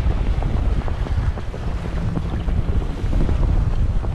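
Strong wind buffeting the microphone, over the low running of the boat's outboard motors, held in gear to stay over the line, and choppy water churning at the stern.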